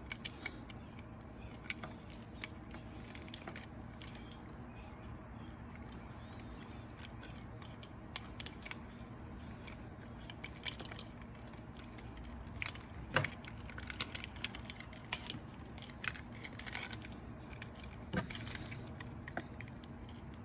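Keys jangling and clinking in short, scattered bursts of small metallic clicks over a steady low hum, busier in the second half.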